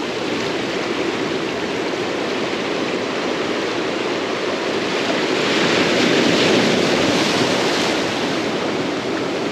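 Ocean surf washing along the shore as a steady rush, with a wave swelling louder a little past halfway and then easing off.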